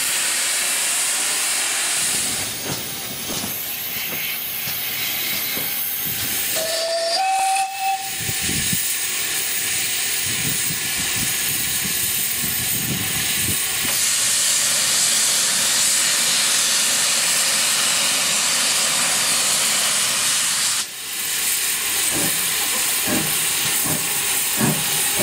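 Steam locomotives venting steam with a loud, steady hiss, with a short rising whistle blast about seven seconds in and exhaust beats as an engine works.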